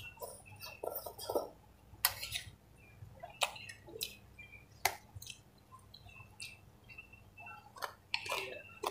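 Close-up eating sounds: instant noodles in soup slurped in, then wet chewing with scattered sharp mouth smacks and clicks. A steady low hum runs underneath.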